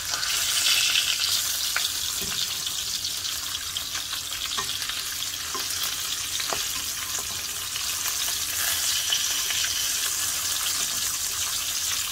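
Rui fish steaks sizzling in soybean oil in a nonstick frying pan over low heat: a steady frying hiss with a few scattered clicks as a spatula turns the pieces over.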